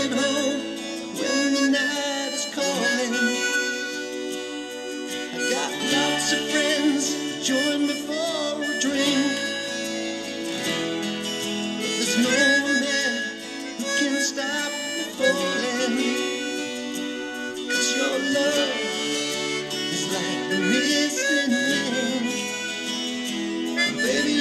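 Chromatic harmonica, a Tombo Unichromatic, playing a melody line over a recorded band backing track.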